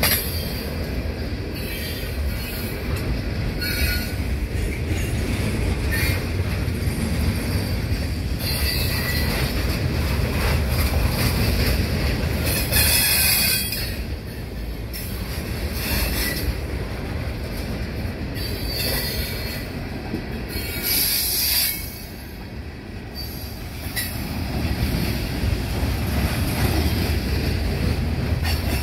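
Wheeling & Lake Erie stone train's hopper cars rolling past close by: a steady low rumble of steel wheels on rail, broken by short high-pitched wheel squeals several times. The loudest squeals come about halfway through and again about two-thirds of the way through.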